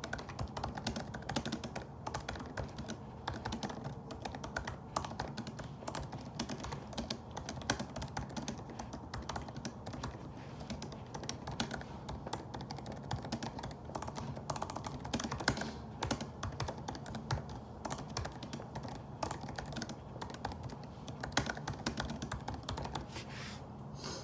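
Fast, continuous typing on a laptop keyboard: a dense, irregular run of key clicks with no pauses longer than a moment.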